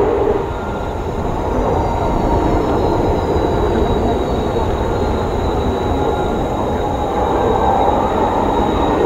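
Kawasaki T-4 jet trainers' twin turbofan engines at takeoff power during a formation takeoff roll: a loud, steady rush with a high whine that slides down in pitch over the first few seconds and then holds.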